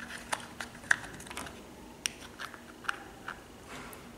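Irregular light clicks and taps of small plastic toy cookware being handled and set down on a plastic toy kitchen playset, the loudest tap about a second in.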